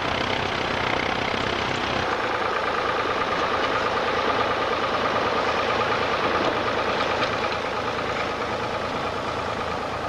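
Vintage farm tractor engines running steadily while ploughing. First a red David Brown tractor, then, after an abrupt change about two seconds in, a second tractor pulling a plough.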